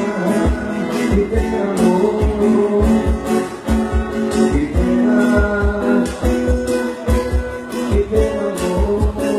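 A live bar band playing: guitar strumming over a steady bass beat, in an instrumental passage between sung lines.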